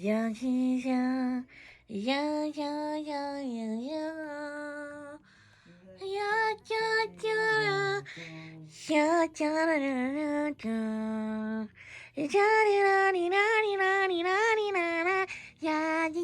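Background music: a high, childlike singing voice without words, sung in short wavering phrases with a few brief pauses.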